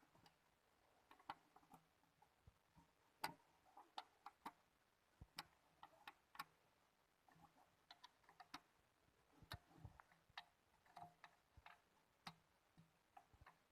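Faint, irregular light clicks and taps of tools and small engine parts being handled during work on a two-stroke brush cutter engine.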